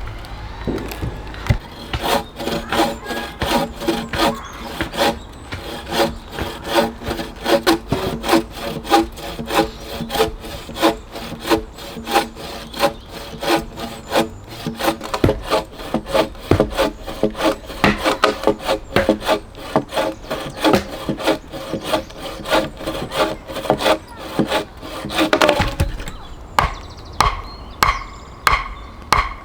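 Hand saw cutting through a log in steady back-and-forth strokes, about two to three a second, with a ringing tone from the blade. The strokes change pace near the end.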